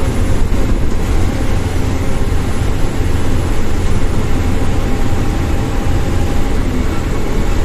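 Steady low rumble of engine and road noise inside a moving bus.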